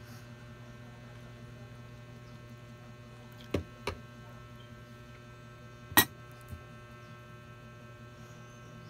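Four sharp clicks of eating utensils knocking against plates and a bowl, the loudest about six seconds in, over a steady low electrical hum.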